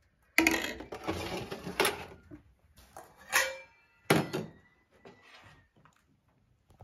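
Stainless steel ladle clanking against a steel pot and metal bowls as soup is ladled out: a run of sharp clatters with a brief metallic ring, the last about four seconds in, then only faint clinks.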